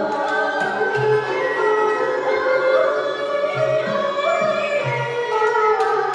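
Traditional Vietnamese water-puppet theatre music played by a live ensemble: a melody with sliding pitches over low drum strokes and light, sharp percussion clicks.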